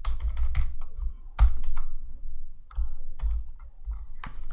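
Typing on a computer keyboard: irregular keystrokes, a few a second, with pauses between short runs.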